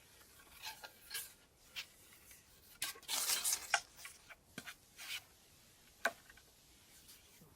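Close handling noise from fishing tackle being rigged: a string of sharp clicks and taps with rustling, loudest in a dense rustle about three seconds in.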